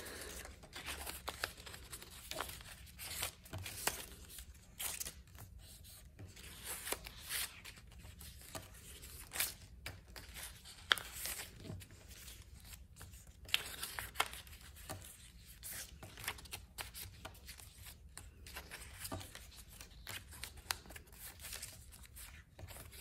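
Strips of construction paper rustling, sliding and being creased as they are folded over one another into an accordion fold, in irregular soft scrapes and crinkles.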